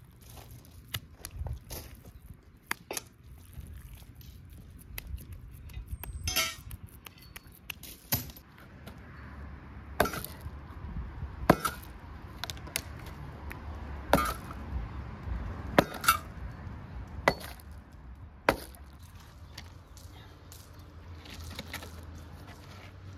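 Kitchen utensils and dishes clinking and knocking during food preparation: a series of separate sharp strikes, roughly one every one to two seconds, several of them ringing briefly.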